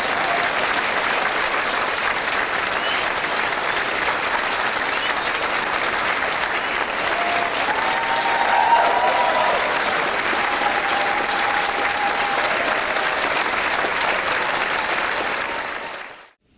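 Audience applauding steadily, with a few voices calling out over the clapping; it fades out sharply near the end.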